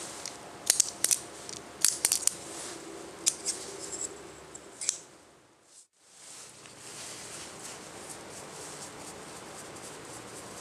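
Several sharp metallic clicks as the aluminium rubber-band pistol is handled, then, after a brief dip, a paintbrush scratching steadily across a wooden grip panel as black paint is brushed on.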